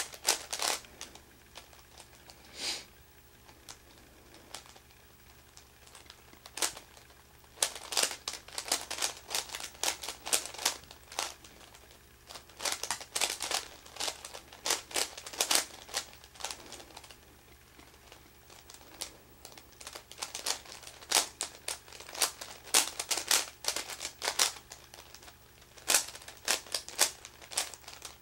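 Plastic clicking and clacking of a Meffert's 4x4 puzzle cube as its layers are turned by hand, in quick runs of turns broken by short pauses of a few seconds.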